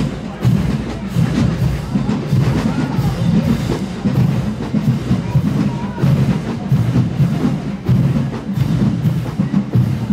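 HBCU marching band drumline playing a marching cadence: snare and bass drums beating in a steady, even rhythm.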